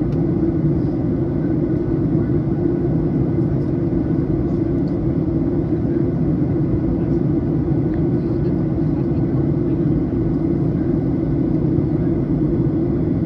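Steady cabin drone of a Boeing 737 in flight, heard beside the wing: engine and airflow noise, deep and unchanging.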